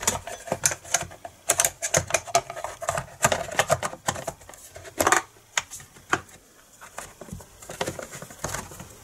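Irregular light clicks and taps, several a second, from chainsaw parts and a hand tool being handled and fitted back together during reassembly.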